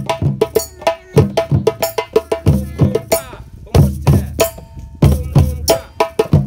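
A group of djembes and other hand drums played together by hand in a rhythm: deep bass strokes alternate with sharper, higher ringing strikes.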